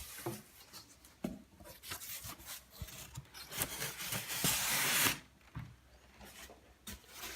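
Packaging being handled and searched through: rubbing and rustling with scattered light knocks, and a louder stretch of rustling a little before halfway.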